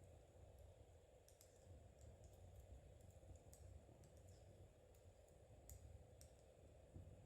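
Metal knitting needles clicking faintly and irregularly as stitches are worked, over a low steady rumble.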